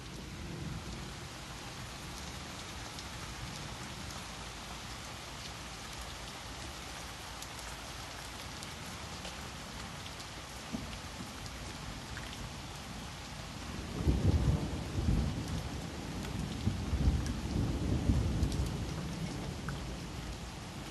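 Steady rain falling, with scattered drips ticking through it. About two-thirds of the way in, thunder comes in as a low rumble that swells and fades in several surges for about five seconds.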